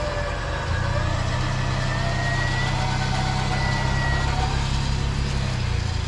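Sixth-generation Ford Bronco's engine running at low revs as the truck crawls through a rut over rock ledges. It is a steady low drone that steps up a little about a second in, with a faint high whine above it.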